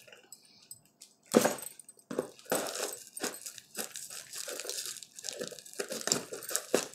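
Large scissors cutting open a parcel's plastic mailer and packing tape, with crinkling and rustling of the wrapping. Quiet at first, then a sharp cut about a second and a half in, followed by irregular cutting and crinkling.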